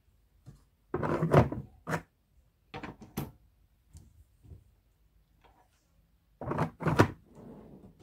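A string of knocks and clunks from hard objects being handled and set down, the loudest about a second in and again near seven seconds, with lighter clicks in between.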